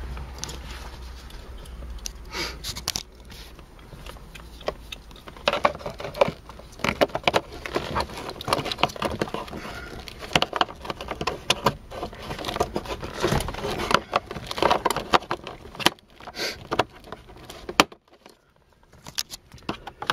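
Hard plastic trim pieces and clips being handled and pushed back into place by hand: irregular clicks, knocks and scraping, quieter near the end.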